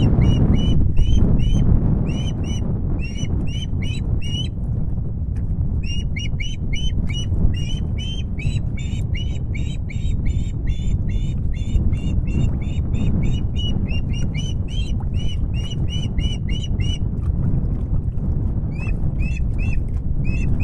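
Osprey calling: long runs of short, sharp, upward-inflected whistled notes, about three a second, broken by two short pauses. Under them runs a steady low rumble of wind on the microphone.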